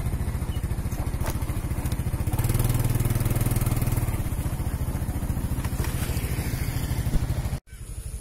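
Motorcycle engine running at low speed, with a steady low pulsing, heard from on the bike as it rides. Near the end the sound breaks off abruptly and comes back lower and quieter.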